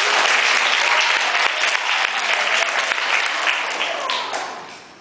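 Audience of seated schoolchildren and staff applauding, a dense burst of clapping that dies away near the end.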